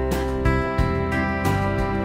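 Background music: guitar chords strummed in a steady rhythm, a fresh strum about every two-thirds of a second.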